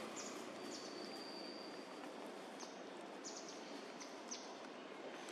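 Forest ambience: a steady background hiss with several short, high bird chirps, and one high whistle held for about a second, starting about a second in.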